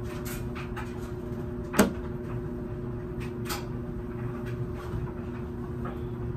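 A laundry machine running with a steady hum, overlaid by scattered clacks and knocks of a door or lid being handled. The loudest is a single sharp knock a little under two seconds in.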